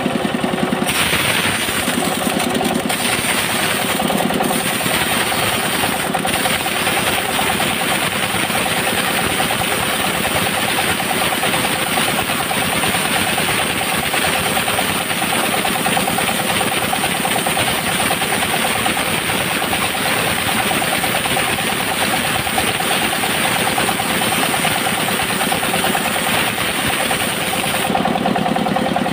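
Bandsaw mill running steadily as its blade rips lengthwise through a coconut-wood plank, a continuous machine drone under the hiss of the cut. The cutting hiss thins near the end.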